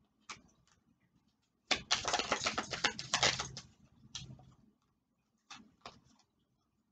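A deck of oracle cards being shuffled by hand: a dense run of rapid card slaps and flutters for about two seconds, then a few single card snaps.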